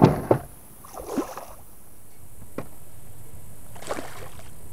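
A hooked fish thrashing and splashing at the water's surface beside a kayak, loudest right at the start and again about a second in.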